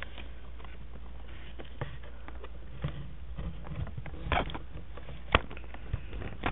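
Handling noise from working on a cardboard shoebox speaker box: scattered light clicks and knocks, with one sharper click about five seconds in, over a steady low hum.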